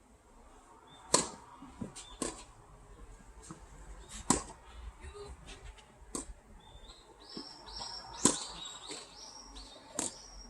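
Tennis rally: rackets hitting the ball about six times, roughly two seconds apart. Short high squeaks sound in the second half.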